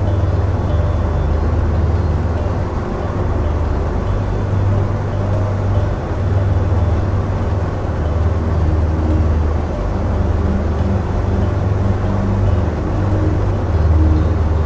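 Steady low rumble of a car on the move, engine and road noise, with no break or change.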